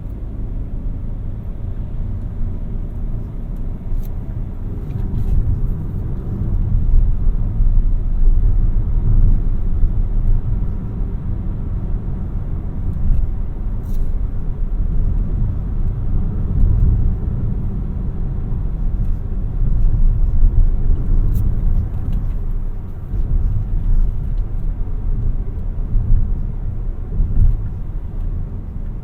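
A 2017 Peugeot 3008 with the 1.2 PureTech three-cylinder petrol engine driving, giving a steady low rumble of engine and road noise that swells and eases. A few faint clicks come through along the way.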